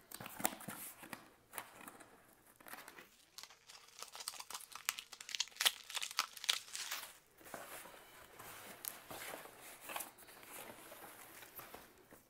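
Cardboard shipping box torn open by hand: its tear strip and taped flap ripped, with irregular tearing, crinkling and rustling of cardboard and packing tape.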